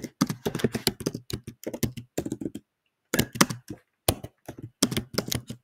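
Typing on a computer keyboard: quick runs of keystrokes with a brief pause about halfway through.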